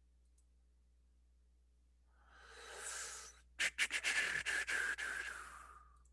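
A person's loud breath near the microphone: a breath drawn in about two seconds in, then a hard rattling, sputtering blow of breath lasting about two seconds.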